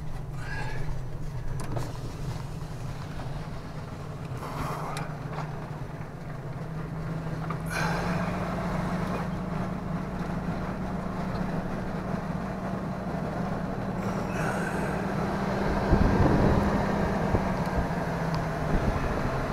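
Motorhome engine running steadily as it drives off slowly, heard from inside the cab. The engine note rises a little about eight seconds in. A few knocks and rattles, and a louder rumble near the end, come from the rough campground road.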